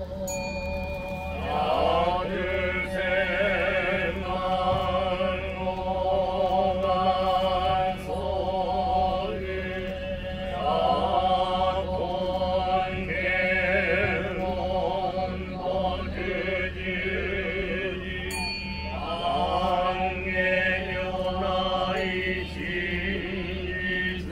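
Buddhist monks chanting together in long, drawn-out held tones, with a new phrase rising in every several seconds.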